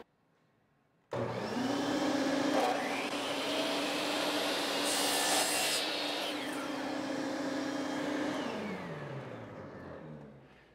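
DeWalt compound miter saw starting up about a second in and running at a steady pitch while the blade cuts through a white oak deck beam, loudest in the middle of the cut. The motor winds down with a falling pitch near the end.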